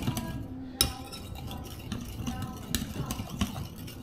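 A whisk stirring liquid in a glass mixing bowl as milk is beaten into the wet ingredients, with irregular clinks and taps against the glass. The sharpest knock comes a little under a second in.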